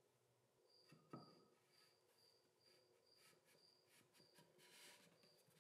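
Near silence: quiet room tone with faint high chirps repeating about twice a second, and a faint knock about a second in.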